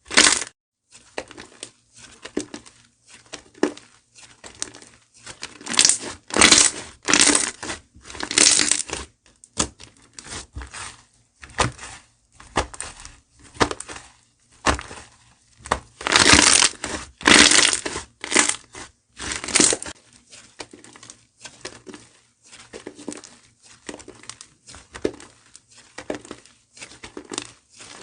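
Slime being squeezed and pressed by hand, giving irregular crunchy, crackling squishes, with louder runs of crunches twice and fainter crackles in between.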